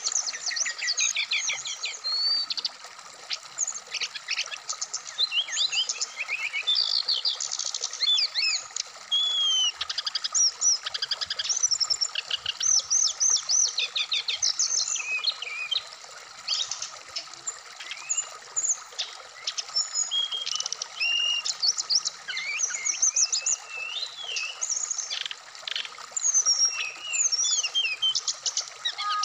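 A sikatan rimba dada coklat (brown-chested jungle flycatcher) singing a fast, varied song of chirps, trills and short whistled slurs with hardly a pause. A stream runs steadily underneath.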